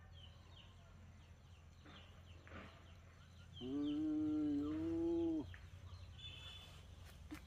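One long animal call lasting nearly two seconds about halfway through, over scattered small bird chirps, with a short high chirp near the end.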